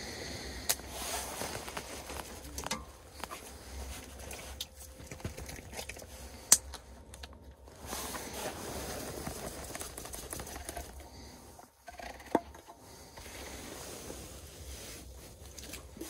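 Rustling and light clicks and taps of hands handling plastic-wrapped chicken, a spice shaker and a can while cooking, with a couple of sharper clicks, over a faint steady low rumble.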